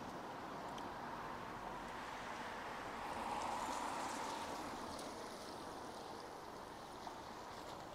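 Steady hiss of rain on a wet street, swelling a little about three seconds in and fading again, with a few light drip ticks.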